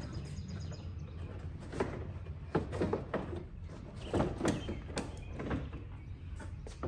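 Plastic rear bumper cover of a Toyota Highlander being slid off the car body, with a run of light scrapes and knocks between about two and five seconds in, over a low steady hum.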